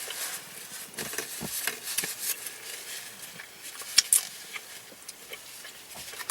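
Close-miked chewing and mouth sounds: wet smacks and small clicks, with a couple of sharper clicks about four seconds in.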